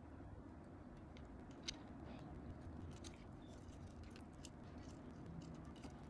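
Faint small clicks and light rustling of a thin power cable and its plastic connector being unwound and handled, with one slightly sharper click about a second and a half in.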